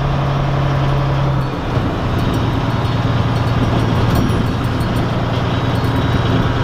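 Volvo semi tractor's diesel engine running while driving without a trailer, heard inside the cab. A steady low drone that drops a step in pitch about a second and a half in.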